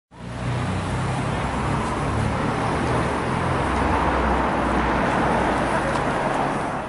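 Road traffic noise: cars passing on a street, a steady hiss over a low engine rumble.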